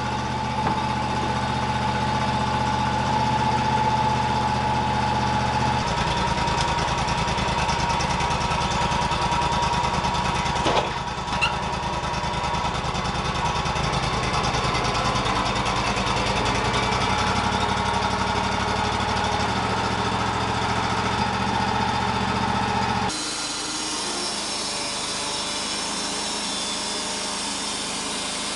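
Wood-Mizer bandsaw sawmill running, its engine driving the band blade through a western red cedar log with a steady whine. The sound changes abruptly about six seconds in and again near the end.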